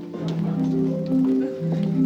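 Music playing, a melody of held notes changing about every half second.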